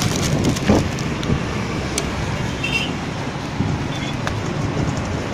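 Steady road traffic noise, with a few sharp knocks over it.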